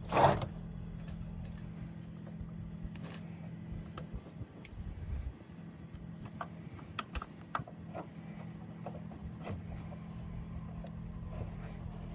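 Plastic pipe couplings being handled and fitted: scattered clicks and knocks, the loudest about a quarter second in, over a steady low hum.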